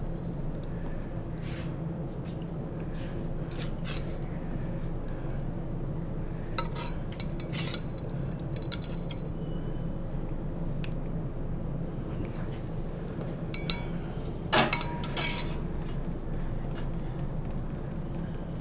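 A metal ladle clinking and scraping against a steel serving bowl and brass pot as curry is ladled out: scattered sharp clinks, the loudest a pair about fourteen to fifteen seconds in. A steady low hum runs underneath.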